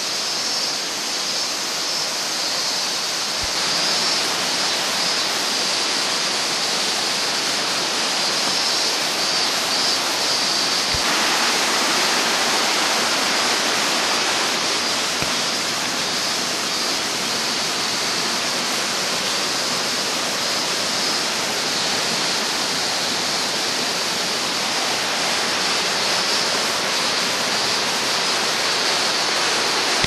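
Steady rushing of water from a rocky mountain stream and waterfall: an even, unbroken wash of noise.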